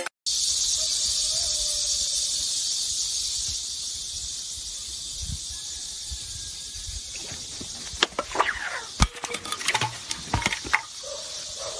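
Insects giving a steady, high-pitched drone that slowly fades. From about two-thirds of the way in, a flurry of sharp knocks and scrapes cuts across it.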